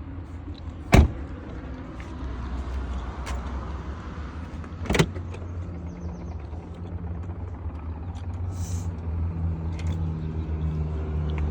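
Car engine running with a steady low rumble heard from inside the car, with two sharp knocks about one and five seconds in.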